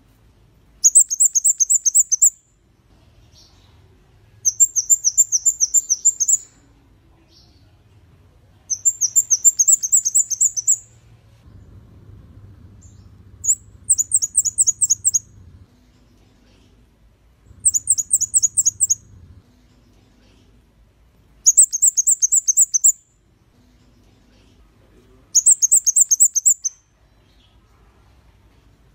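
Red-headed flowerpecker (kemade kepala merah) singing. It repeats a short, high, rapid trill of quick downward-flicking notes, each phrase lasting under two seconds and coming about every four seconds, seven times.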